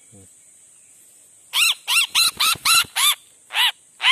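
A trapped bird held in the hand giving loud, harsh squawks, about three a second, starting about one and a half seconds in: distress calls as it struggles and pecks at its captor.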